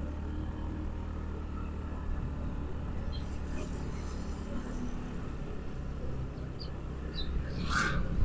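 Motorcycle riding at low speed, heard from on board: a steady low engine hum with wind and road noise. Near the end another motor scooter passes close by, with a brief swell in loudness.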